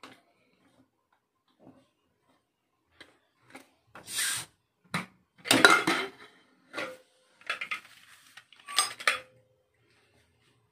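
A pressure cooker being opened: metal clicks and clatter as the lid handle is worked and the inner lid is pushed down, tilted and drawn out of the rim. There is a brief hiss about four seconds in, and a couple of clanks that ring briefly near the end.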